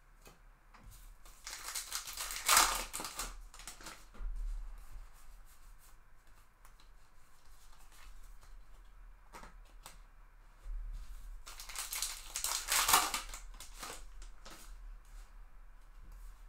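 Baseball card pack wrappers being torn open and crinkling, in two loud bursts about ten seconds apart, with softer rustling of cards being handled between them.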